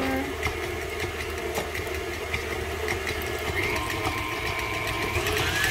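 Electric stand mixer running at a steady speed, its motor humming as the flat beater turns through a thick creamed mixture in a stainless steel bowl.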